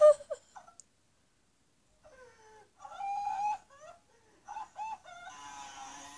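Sound from a television playing a comedy clip: a few short pitched calls, then from about five seconds in a motorcycle engine running steadily, heard through the TV speakers.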